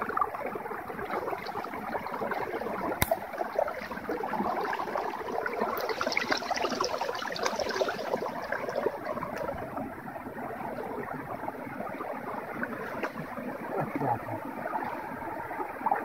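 Steady rush of a shallow stream and the small waterfall feeding it, with feet splashing as they wade through ankle-deep water. There is a single sharp click about three seconds in, and a brighter, louder spell of splashing from about six to eight seconds in.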